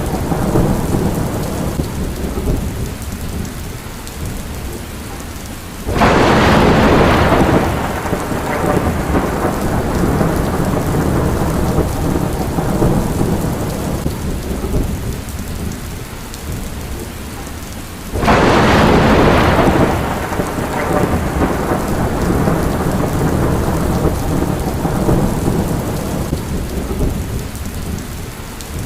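Steady rain with low rumbling thunder. Two loud claps of thunder break out, about six seconds in and again about eighteen seconds in, each rolling away over several seconds.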